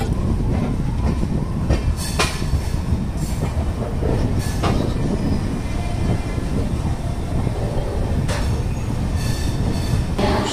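Express passenger train running on the rails: a steady rumble with a few sharp clanks spread through it.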